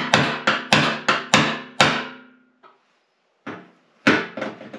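Hammer tapping a steel fuel-pump lock ring around on top of a new steel fuel tank. About nine quick metallic taps come in the first two seconds, and the tank rings after them. After a pause a few more taps follow near the end. The lock ring is too small and will not go under the tank's clasps.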